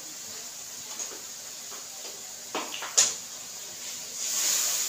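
A metal spoon knocks sharply against a steel wok about three seconds in, after a few lighter clicks, and then the frying masala in the pan sizzles louder as it is stirred near the end.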